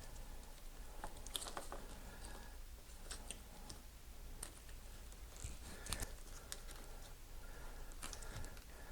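Scattered light clicks and taps of small parts being handled: a crimped terminal and wire being pushed into a plastic multi-pin bulkhead connector, the sharpest click about six seconds in.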